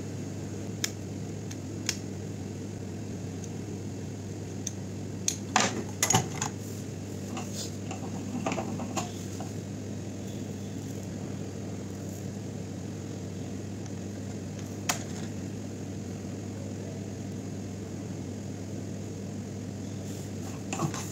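A steady low hum, with a few light clicks and taps of a screwdriver and soldering-iron tip on an LED bulb's metal LED board, bunched about five to six seconds in, as a fused LED chip on the board is bridged with solder.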